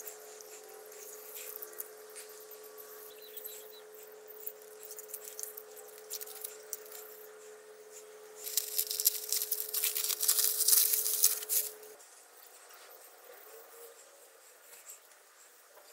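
A steady hum with faint ticks and rustles. About eight seconds in comes a louder crackling rustle lasting about three and a half seconds, and the hum stops about twelve seconds in.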